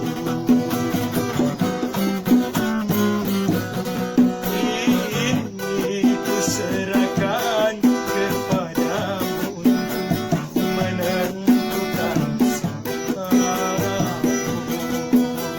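Instrumental music led by plucked acoustic strings such as guitar, with a steady rhythm.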